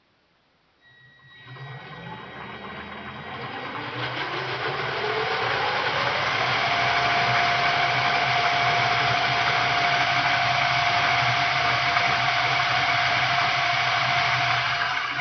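An e-bike's electric drive motor spinning up under power: starting about a second in, a whine rises in pitch over about five seconds and then holds steady, over a low hum and a rushing mechanical noise.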